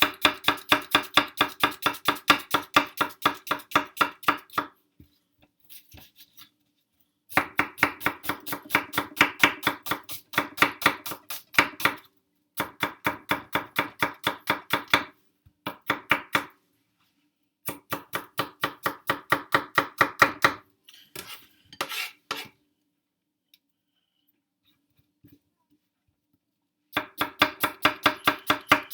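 Kitchen knife chopping onion fast on a cutting board, about five even strokes a second, in several runs with short pauses and one longer stop before the chopping resumes near the end.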